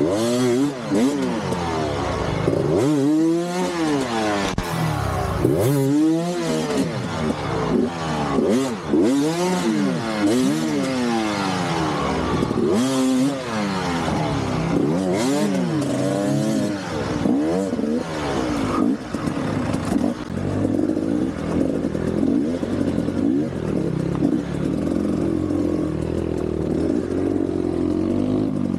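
KTM enduro motorcycle engine revving hard and dropping again and again, the pitch rising and falling every second or two. From about two-thirds of the way through it settles into a steadier, lower running.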